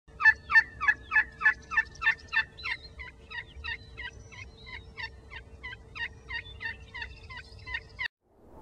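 Sound effect for an animated logo intro: a rhythmic run of sharp, rattling pulses, about three a second, loudest at first and fading gradually, over a faint steady hum. It cuts off suddenly near the end.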